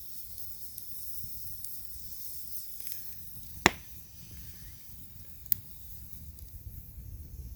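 Sausages sizzling in a frying pan, a steady hiss with a low rumble underneath. Two sharp clicks come a little under two seconds apart, the first just past halfway.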